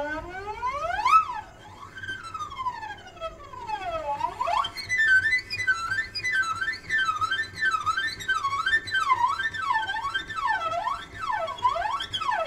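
Eerie soundtrack of gliding, siren-like electronic tones: slow swoops up and down at first, then from about four and a half seconds in several layers warbling quickly up and down.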